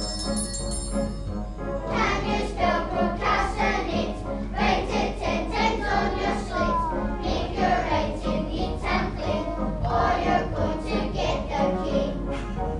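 Music: a choir singing over instrumental accompaniment, with the voices coming in about two seconds in after a short instrumental passage with bell-like notes.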